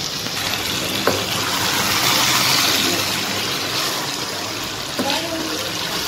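Finished potato and aubergine curry sizzling and bubbling in its oil in a wok over a gas burner: a steady hiss that swells in the middle, with a light click about a second in.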